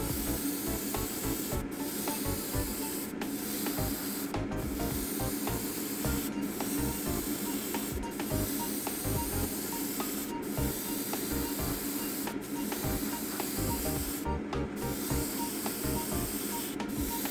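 Airbrush spraying a wet coat of clear paint at low air pressure (0.1–0.15 MPa): a steady hiss of air and paint, cut by brief pauses every second or two as the trigger is let off between passes, over a steady low hum.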